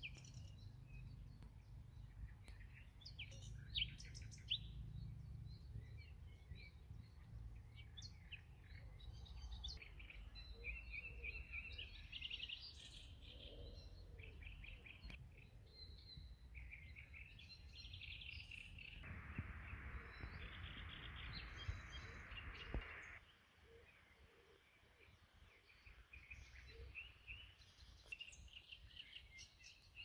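Several songbirds chirping and singing in short trills, over a low rumble that stops abruptly about three quarters of the way through. A steady hiss joins for a few seconds just before the rumble stops.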